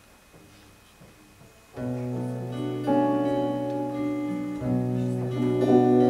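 Near silence, then about two seconds in guitars start the intro of a song: chords ring over a steady bass note and grow louder about a second later.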